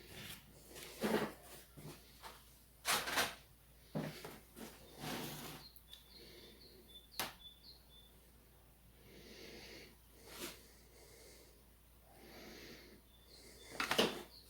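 Plastic clips clicking and scraping as the lower case of a Lenovo Legion Y520 laptop is pried off: a string of short scrapes and snaps, with a sharp click about seven seconds in and the loudest scrapes near the end.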